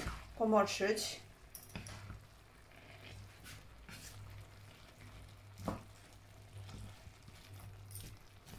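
Wooden spatula and chopsticks stirring noodles, cabbage and vegetables in a frying pan on the hob: soft scrapes and taps against the pan over faint sizzling, with a steady low hum underneath.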